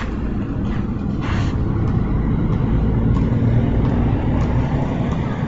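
A motor vehicle passing: a low rumble that swells to its loudest about three and a half seconds in, then fades. A short swish about a second in.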